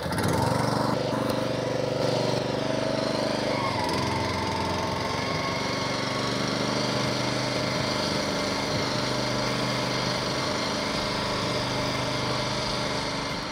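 Toro Greensmaster 1600 walk-behind greens reel mower with its petrol engine running steadily, heard as a sound-level comparison. Its pitch shifts slightly about four seconds in.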